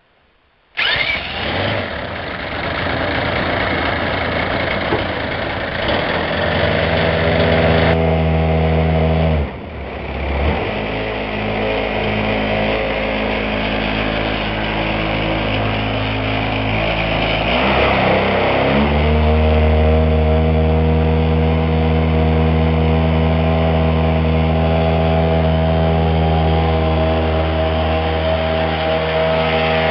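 Single-cylinder two-stroke petrol engine of a large radio-controlled model plane running with its propeller. It starts about a second in, its pitch dips briefly twice as the throttle is worked, and it then holds a steady run.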